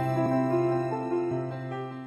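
Instrumental background music with held notes, growing quieter toward the end.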